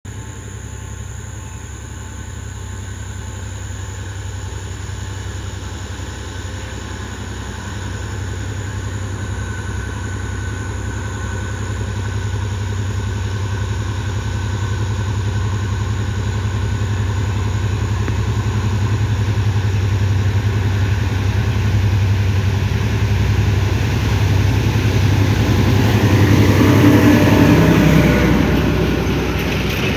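Sri Lanka Railways M2D-class diesel-electric locomotive's engine drone, growing steadily louder as the train approaches and loudest as it passes close by near the end.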